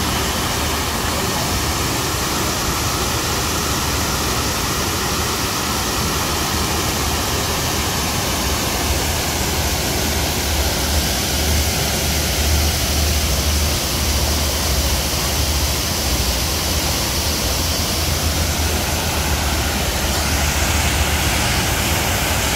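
Shifen Waterfall, a wide curtain of water falling over a rock ledge into a pool, rushing steadily as one loud, unbroken wash of noise with a deep rumble underneath.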